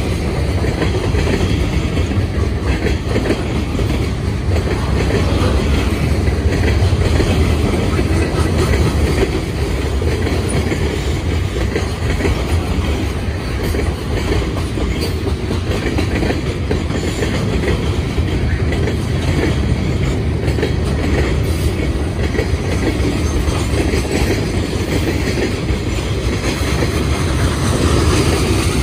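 Freight train cars (lumber-loaded flatcars, tank cars and boxcars) rolling past: a steady rumble of steel wheels on the rails.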